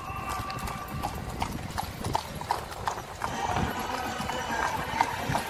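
Horse's hooves clip-clopping in a steady run of sharp knocks as it pulls a carriage.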